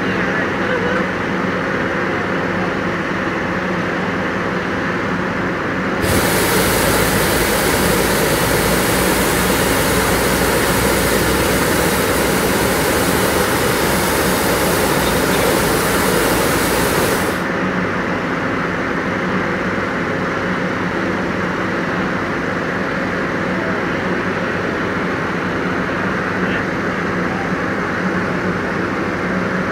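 Hot-air balloon's propane burner firing in one long blast, from about six seconds in to about seventeen seconds in, heating the upright envelope before lift-off. A steady engine drone runs underneath throughout.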